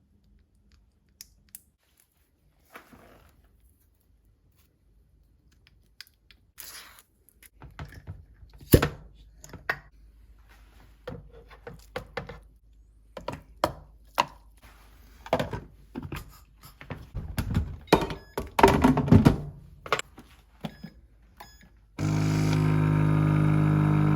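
Irregular knocks and clatter of food and containers being handled during food preparation, then about two seconds before the end an electric blender starts and runs loud and steady.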